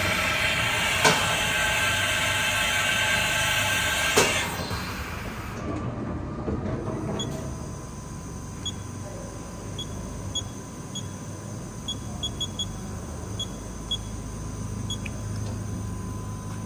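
Haas VF-8 vertical machining center's carousel tool changer cycling: a steady mechanical whine for about four seconds, with a sharp clunk about a second in and another at about four seconds. The machine then settles to a low hum, broken by a dozen short high beeps at uneven intervals.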